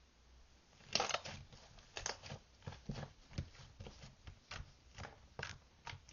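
A run of irregular light clicks and taps, roughly one or two a second, beginning about a second in after a quiet start.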